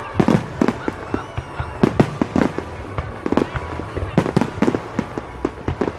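Fireworks display: aerial fireworks banging and crackling in irregular, rapid succession, several reports a second at times.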